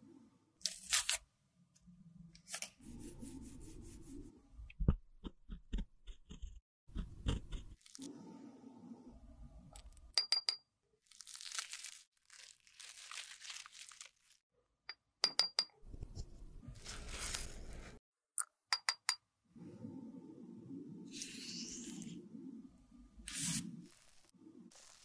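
A metal spatula scraping and crumbling pressed blush powder out of a plastic compact: a string of short crunching, scraping sounds, broken up by a few quick runs of sharp clicks.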